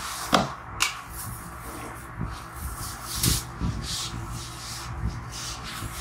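Plastic comb drawn repeatedly through short, freshly cut hair: a run of quick, irregular rubbing swishes, with a sharper click a little under a second in.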